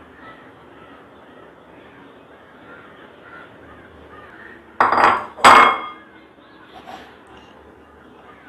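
Crows cawing in the background, with two loud, harsh caws about half a second apart near the middle.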